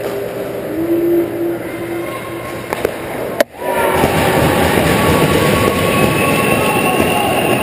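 Ice hockey rink sound: steady arena noise with one sharp knock about three seconds in. The sound drops out for a moment about half a second later and comes back louder and steadier.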